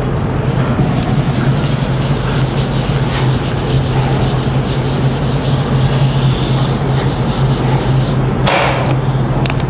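Chalk scratching and tapping on a blackboard in a run of short strokes as writing goes on, with a brief louder scrape near the end, over a steady low hum.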